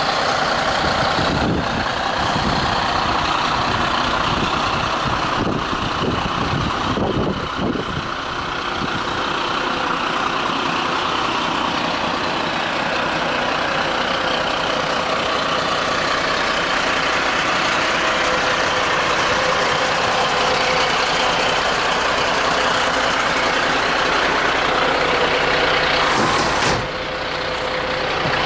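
Mercedes-Benz Atego 1324 fire engine's diesel engine idling steadily.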